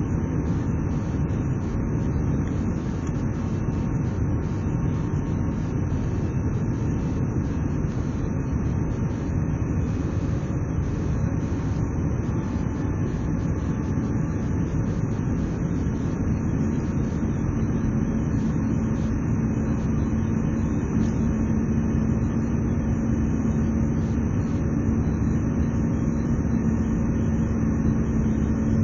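Cabin noise of an Airbus airliner climbing after takeoff: the steady, even rush of the jet engines and airflow heard from a window seat over the wing. A steady low hum joins the noise a little past the middle.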